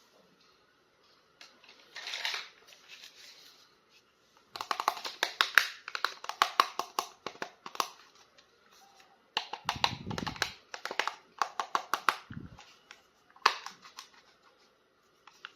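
Plastic toy packaging and an action figure being handled and unwrapped: bursts of rapid crinkling and clicking, with two short low thumps near the middle.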